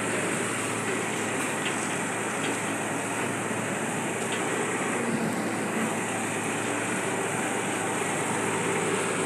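Forklift engines running steadily at a constant level, a low even hum under a broad hiss.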